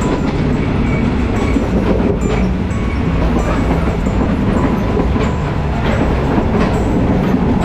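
Train running at speed, heard from inside a third-class carriage: a steady rumble with irregular clacks of the wheels over the rails.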